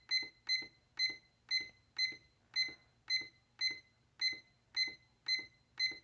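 La Crosse Technology W79752 digital wall clock beeping at each press of its setting button: about a dozen short, high beeps with a soft click, roughly two a second, as the time is stepped forward.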